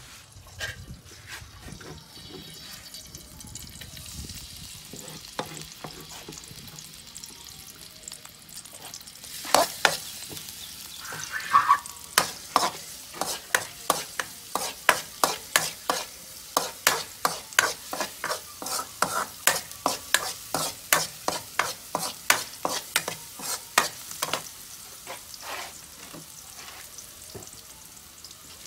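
Garlic frying in a steel wok with a steady sizzle. From about nine seconds in, a metal spatula scrapes and knocks against the wok about twice a second as the garlic is stirred.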